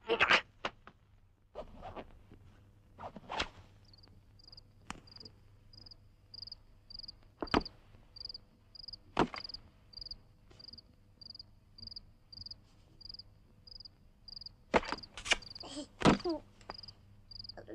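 Soundtrack sound effects: a short, high chirp repeating evenly about twice a second, insect-like, with scattered sharp knocks and thuds and a cluster of loud knocks near the end.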